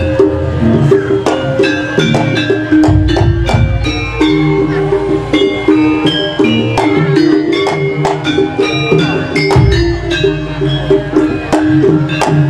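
Live jaranan gamelan music: many struck, ringing metal notes over drumming, played continuously in a dense rhythm.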